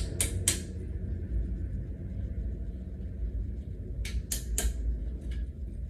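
Sharp clicks and light knocks from flat-pack dresser parts and hardware being worked during assembly. They come in two quick runs of three, near the start and about four seconds in, over a steady low rumble.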